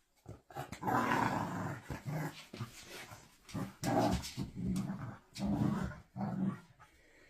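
Dogs growling in a string of rough bursts, about half a dozen, while they wrestle and mouth at each other in play.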